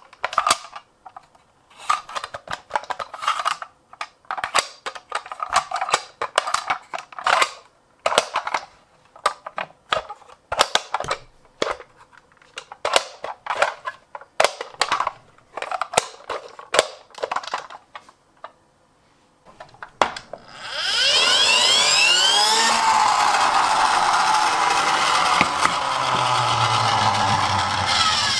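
Irregular sharp plastic clicks and clacks from handling toy vehicles for most of the time, then a toy ambulance's electronic siren starts loudly with a sweeping, rising and falling pitch. A low hum joins near the end.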